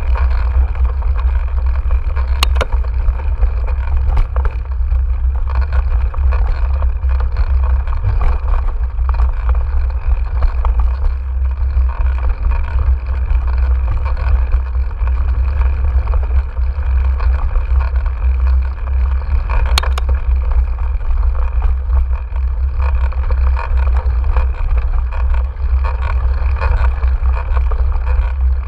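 Wind buffeting a GoPro action camera's microphone while mountain biking on a dirt trail: a steady, loud low rumble with the rough rustle of tyres over dirt and gravel. Two sharp clicks of the bike rattling over bumps, one a couple of seconds in and one about twenty seconds in.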